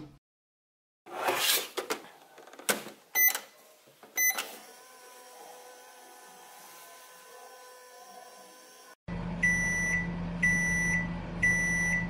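Toy microwave: plastic knocks and two short button beeps, then a faint steady electronic hum as it runs. About three-quarters of the way through, a louder low hum starts with three evenly spaced beeps about a second apart, as its timer reaches zero.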